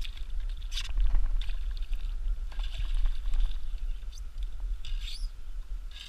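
Hooked carp splashing and thrashing at the surface as it is scooped into a landing net and lifted aboard a paddleboard, with water sloshing and dripping in irregular bursts over a low rumble.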